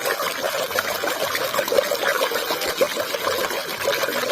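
Water pouring and trickling as a muddy plastic toy is washed clean under it, with small splashes.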